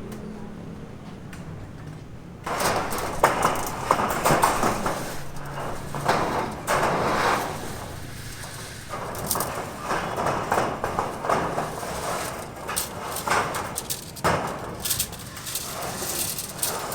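Irregular scraping and knocking of hand work on a building site, starting about two and a half seconds in.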